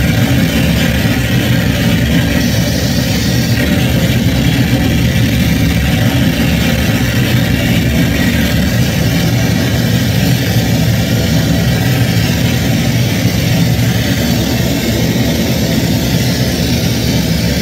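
Harsh noise music played loud through a PA: a steady, unbroken wall of distorted noise with a heavy low rumble underneath.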